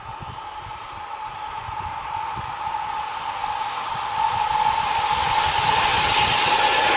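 Approaching train, a rising rush of noise with a steady high whine that grows steadily louder as it nears.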